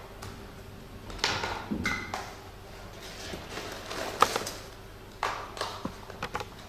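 Small boxed microneedle cartridges being handled and set down on a tabletop: a series of light knocks and clicks, one every second or so.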